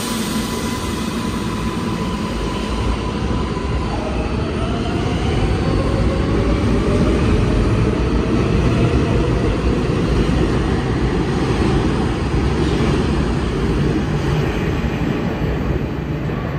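An R188 subway train pulling out of an underground station. Its traction motors whine, rising in pitch from about four seconds in as it accelerates, over a rumble of wheels on rail that grows louder as the cars pass.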